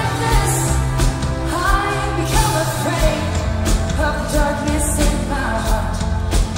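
Live indie pop band playing: a woman singing into a microphone over a drum kit and a low bass line, heard loud from the audience.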